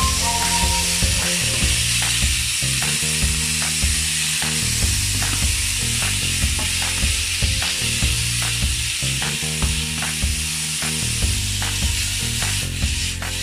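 Chicken strips sizzling in a frying pan, with a steady hiss, while a wooden spatula stirs them, making repeated light clicks and scrapes against the pan that stop near the end. Soft background music plays underneath.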